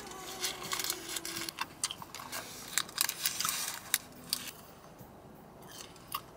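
Small clicks and crinkles of a pleated paper dessert liner being handled while a strawberry dessert is eaten, irregular and close, with a quieter stretch in the last couple of seconds.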